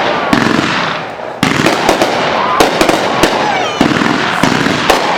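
Fireworks going off in rapid succession: dense crackling and popping with many sharp reports, easing briefly about a second in before picking up again.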